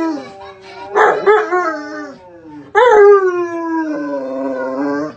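Large pit bull howling: a series of long howls, each slowly falling in pitch, the last and longest starting nearly three seconds in and stopping abruptly.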